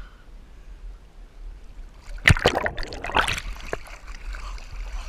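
River water splashing and sloshing against a camera held at the waterline, with a loud burst of splashes starting about two seconds in and lasting a second or so, then settling to a steadier lapping.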